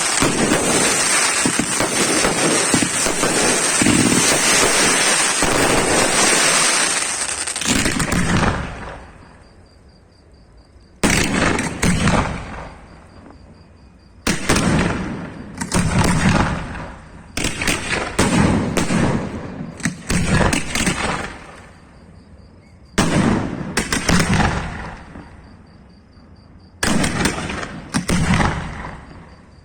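Fireworks display: a dense, continuous barrage of crackling and banging that cuts off after about eight seconds. It is followed by a series of separate loud bangs, one to three seconds apart, each fading away over a second or so.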